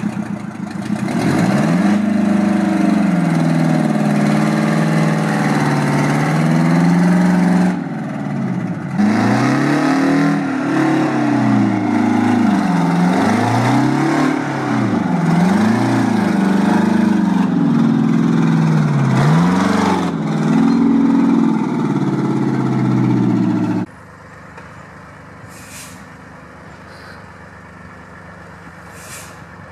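Heavy diesel log truck engine revving as the loaded truck pulls away, its pitch rising and falling over and over. It cuts off abruptly to a quieter engine with two short hisses near the end.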